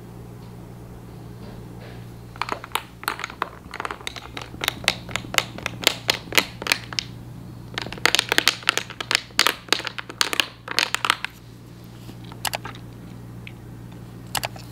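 Metal spoon stirring whipped dalgona coffee into milk in a glass, tapping against the glass in quick runs of about five ticks a second. There are two runs of a few seconds each, then a couple of single taps, over a steady low hum.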